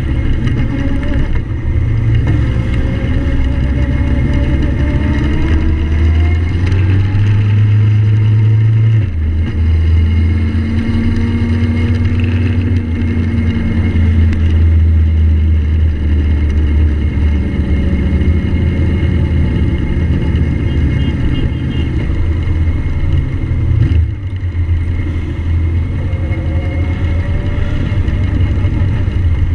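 Motorcycle engine running under way with wind rushing over the microphone, the engine note rising as it pulls away and shifting about nine seconds in.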